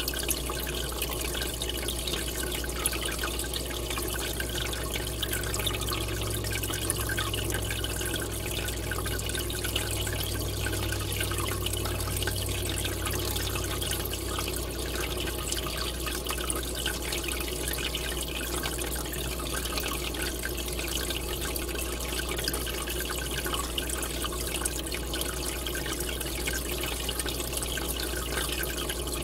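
Steady bubbling and rushing of water from an aquarium's air bubble column rising and breaking at the surface, with a low steady hum underneath.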